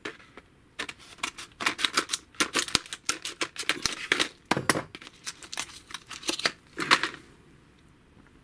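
Tin snips cutting through a hard plastic blister pack: a rapid run of sharp cracks and snaps that stops about seven seconds in.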